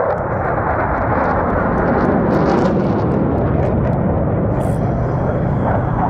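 A steady, rushing jet roar from a formation of KAI T-50B jet trainers flying aerobatics overhead.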